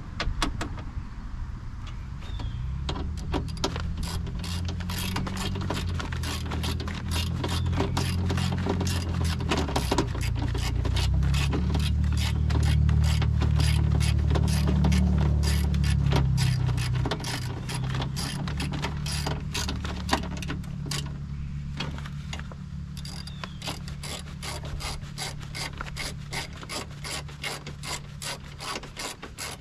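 Hand ratchet wrench clicking in quick, repeated strokes, about three clicks a second, as fasteners of a car's power window assembly are worked inside the door. A low droning hum swells in the background around the middle.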